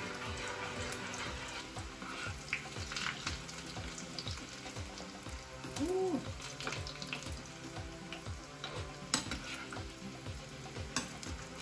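Chopped garlic and cumin seeds frying in coconut oil in a small pan, a steady sizzle as they are stirred with a spoon, with a few sharp clicks of the spoon against the pan. Background music with a steady beat plays underneath.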